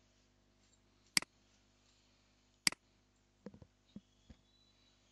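Computer mouse button clicks: two sharp clicks about a second and a half apart, then a few softer clicks near the end.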